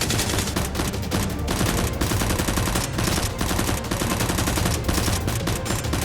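Rapid automatic gunfire: a dense, unbroken run of shots in quick succession.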